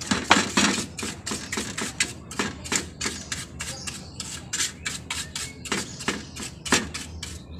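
Brush strokes scrubbing dust off the circuit boards and sheet-metal chassis of an opened LCD monitor: a quick, irregular run of short, scratchy swipes, a few a second.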